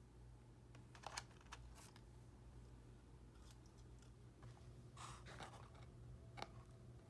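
Near silence: a low steady room hum with a few faint rustles and clicks scattered through.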